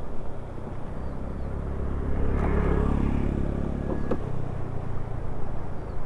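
Motorcycle engine running at idle, a steady low hum that swells between about two and four seconds in and then settles back.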